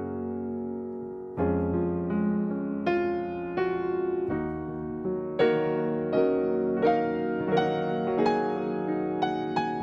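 Background piano music: gentle chords struck at a steady, unhurried pace, each note ringing and fading.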